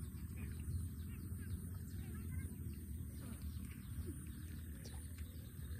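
Outdoor rural ambience: a steady low rumble with a few faint, short chirps and a thin, steady high whine above it.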